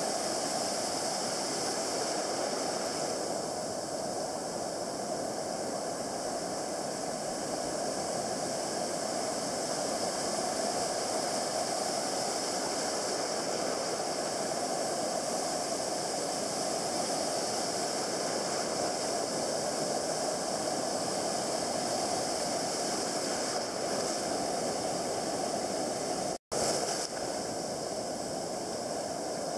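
Ocean surf from a hurricane swell breaking and washing up the beach: a steady rush of white water. The sound drops out for a split second near the end.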